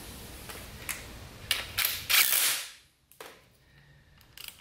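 Ratchet clicks and metal knocks as the crankshaft of a bare LS V8 block is turned by hand with a socket on the crank snout. The loudest is a sharp clack about two seconds in: the crank counterweight striking a cam retainer plate bolt that is too long.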